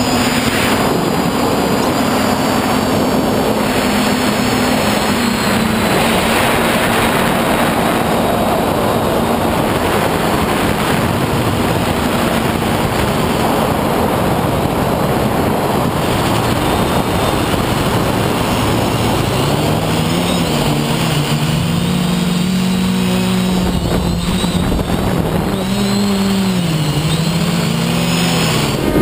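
Electric motors and propellers of an FPV quadcopter, recorded onboard, with heavy wind rush over the camera. The motor tone holds steady at first, then from about two-thirds of the way through it rises and falls repeatedly as the throttle is worked.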